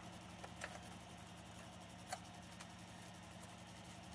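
Quiet room tone with a steady low hum and a few faint light clicks, the clearest about two seconds in, from plastic gear being handled on a workbench.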